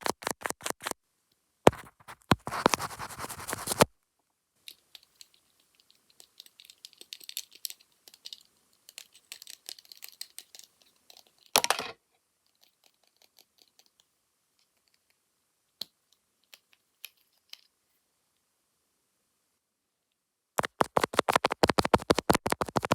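Fast ASMR tapping and scratching on a camera lens, in quick runs of sharp taps, several a second. Between the runs come scratchy rubbing and faint scattered ticks. It stops for a few seconds, then the rapid tapping starts again near the end.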